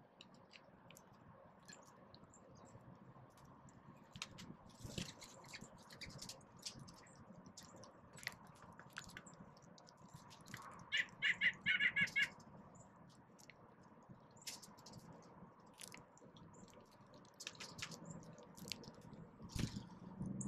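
Birds pecking at scattered seed close by: many small, irregular clicks and ticks. About halfway through, a bird makes a fast run of about ten harsh notes lasting just over a second, and there is a dull thump near the end.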